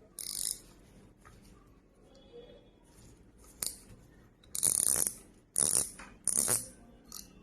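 Bullzen Gamer Blizzard 5000 spinning reel being handled, giving short rattling ratchet clicks: a brief burst at the start, a single click, then three louder bursts in the second half.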